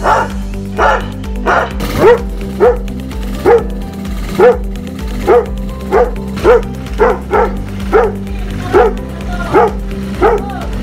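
A Doberman barks, then from about two seconds in a Belgian Malinois barks in a steady run of about two barks a second. Background music plays underneath.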